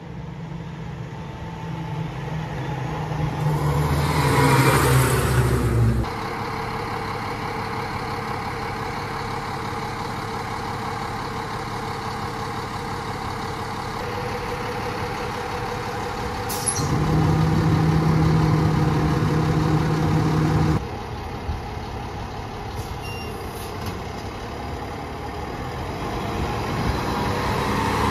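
Fire engine's diesel engine running as the pumper moves slowly and idles. Its sound swells about four seconds in, and again for a few seconds past the middle.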